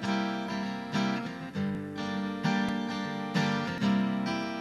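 Steel-string acoustic guitar strumming chords in a steady rhythm, with an accented strum about once a second and no voice over it.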